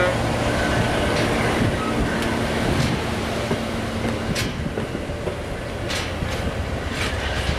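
Amtrak passenger train's stainless-steel Amfleet coaches rolling past close by: a steady rumble of wheels on rail, with sharp clicks now and then as the wheels cross rail joints.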